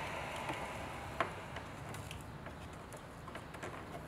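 Vinyl wrap being peeled by hand off a plastic center console panel, its adhesive softened by heat: quiet scattered ticks and crackles, with one sharper click about a second in.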